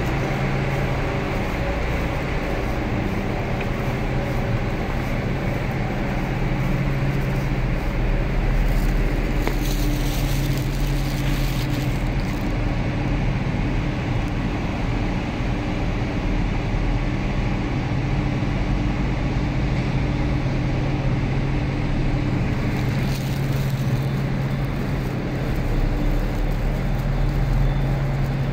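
Steady low mechanical drone with a constant hum, echoing in an underground bus hall, with no clear events in it.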